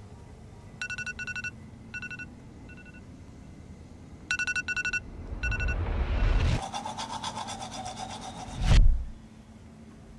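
An electronic alarm beeps in short clusters of quick beeps. It gives way to a rising whoosh that swells into a fast, pulsing buzz. The buzz ends in a single deep boom about nine seconds in.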